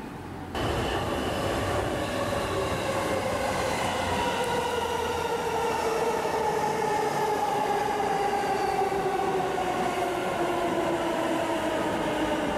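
E233-series electric commuter train pulling into a station platform. Its motor whine falls slowly in pitch as it brakes, over steady wheel-and-rail rumble. The sound cuts in suddenly about half a second in.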